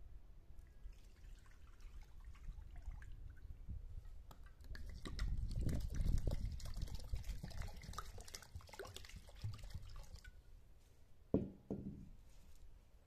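Water poured from a clay jug into a bowl of rice, a steady splashing pour lasting about five seconds. Shortly after it stops, one sharp knock as the clay jug is set down on concrete.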